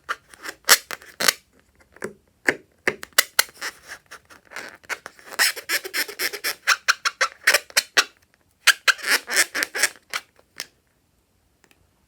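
Slime being pressed and worked by hand, making an irregular run of sticky crackling clicks and small pops in clusters with short pauses.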